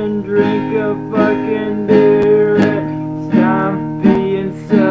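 Acoustic guitar music: strummed chords struck at a steady pace.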